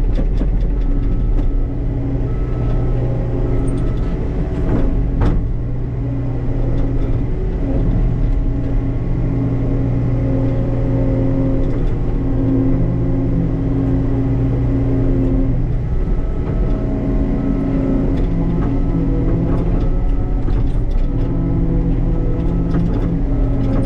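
Diesel engine of a compact earthmoving machine running steadily under working load while sand is pushed in around a buried propane tank, its note shifting a few times. A sharp knock about five seconds in.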